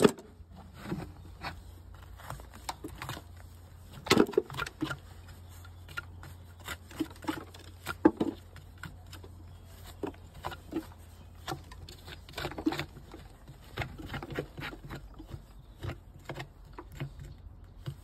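Irregular scraping, crunching and clicking of a hand tool digging packed mud out of the sole of a shod Shire horse's hoof, with a couple of louder knocks about four and eight seconds in.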